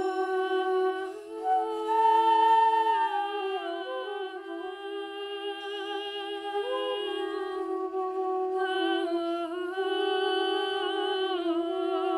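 Background music: a slow, lamenting melody with vibrato on a wind instrument over a steady held drone note.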